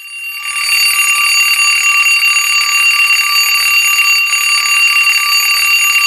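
Alarm clock ringing continuously, fading in over about the first second and then holding a steady, unbroken ring.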